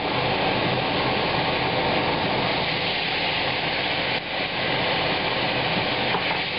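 Tomato passata sizzling and bubbling hard as it hits a hot pot of browned mushrooms, carrots and shallots on high heat, a steady hiss.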